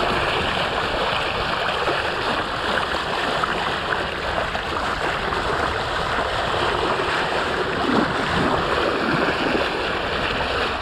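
Water rushing and splashing along the hull of a sailboat under way, a steady wash, with wind on the microphone.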